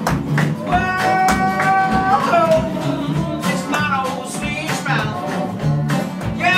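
Live acoustic blues: acoustic guitars and an acoustic bass guitar keep a steady picked rhythm while a lap-style slide guitar plays long notes that glide up and down in pitch.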